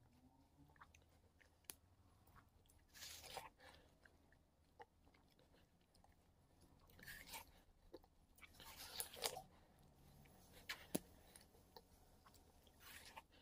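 Biting into and chewing frozen watermelon close to the microphone: crisp crunches in several short bursts a few seconds apart, with quiet chewing between.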